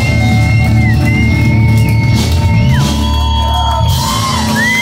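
Live rock band playing amplified electric guitars, bass and drums, with a heavy steady low end and long held high notes that bend in pitch.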